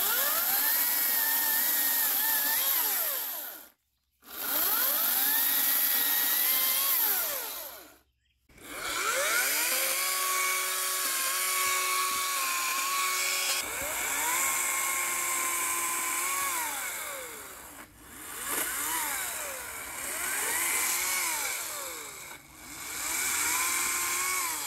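HART 40-volt brushless cordless chainsaw cutting a tree limb in a series of runs. Each run is a motor-and-chain whine that rises as the trigger is pulled, holds steady and winds down on release, with two brief breaks early on.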